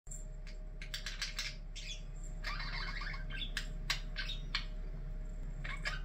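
Pet budgerigars chirping in short, separate calls, with a longer run of warbling chatter near the middle.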